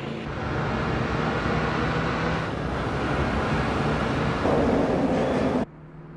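Car engine running hard at speed with tyre and road noise, louder for about a second near the end, then cutting off suddenly to a much quieter steady hum.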